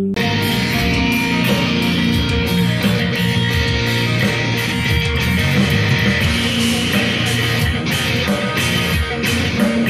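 Electric bass guitar playing an original instrumental piece: a loud, dense passage of many quick plucked notes that starts abruptly at the opening.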